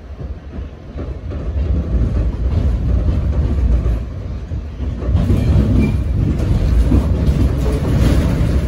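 Interior noise of a moving R68 subway car: a steady low rumble of the wheels on the rails with some clickety-clack over the rail joints. It grows louder about a second in and again about five seconds in.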